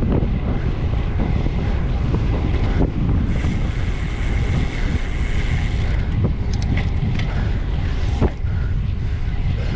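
Wind buffeting the microphone of a bike-mounted camera while riding at speed: a steady low rumble, with a few sharp clicks in the second half.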